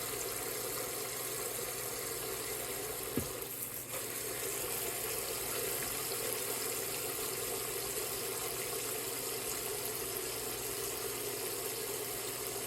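Water running steadily into the tub of a small portable washing machine as it is filled, with one brief knock about three seconds in.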